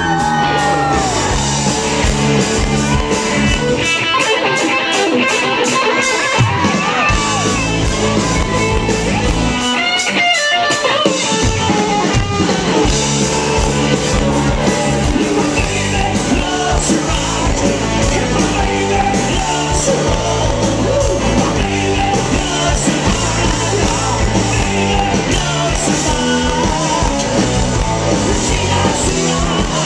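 Live rock band playing loudly: distorted electric guitar, bass and drums under a male lead vocal, recorded near the stage on a small Flip camcorder. The bass and drums drop away briefly twice, about four and ten seconds in.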